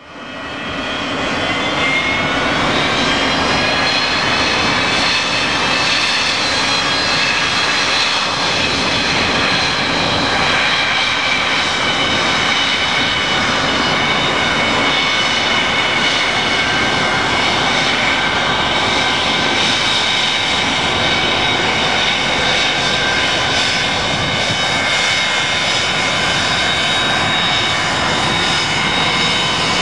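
Pratt & Whitney JT8D turbofan engines of a Boeing 727 freighter running steadily: a dense jet roar with several high whining tones on top, the whine rising a little over the first few seconds and then easing slowly down.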